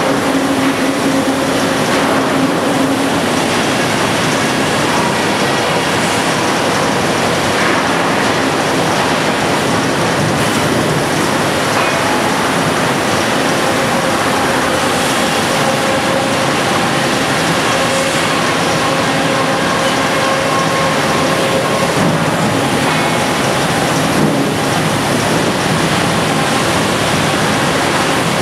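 Sawmill machinery running steadily and loudly: a 42-inch circle saw squaring walnut logs on its carriage, with roller conveyors. It makes a dense, unbroken mechanical noise with a faint steady hum under it.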